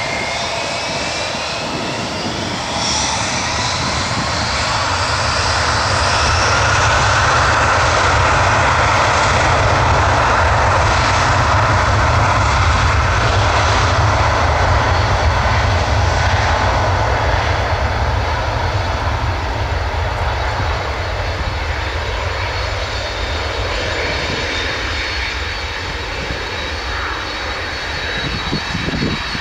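Airbus A319's twin IAE V2500 turbofan engines spooling up to takeoff thrust, with a rising whine over the first few seconds, then running at full power as the airliner accelerates down the runway. The sound swells and then slowly fades as the aircraft draws away toward lift-off.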